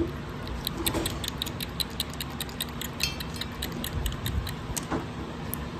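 A young kitten suckling milk from a feeding syringe, its mouth clicking on the tip in a quick, even rhythm of about five clicks a second.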